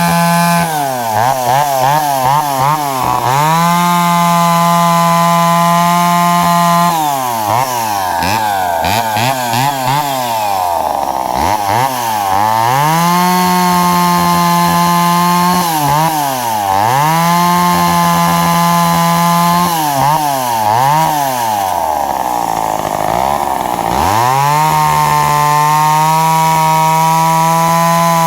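McCulloch Pro Mac 10-10S two-stroke chainsaw cutting into a log round at full throttle. The engine note drops repeatedly as the chain bogs down in the wood, then climbs back up to a high, steady whine between cuts.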